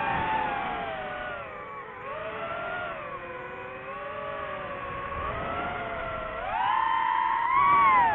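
DJI FPV drone's motors and propellers whining, the pitch sweeping up and down with the throttle. It climbs sharply about six and a half seconds in, holds high and loud, then drops at the end.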